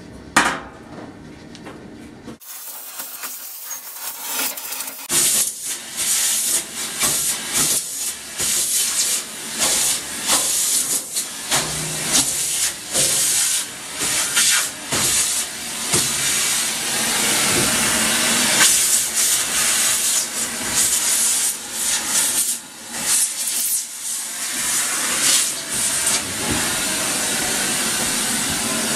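A sharp snap near the start, then a vacuum cleaner running with its hose nozzle down inside the opened dryer cabinet: a loud suction hiss that keeps swelling and dipping as the nozzle moves about.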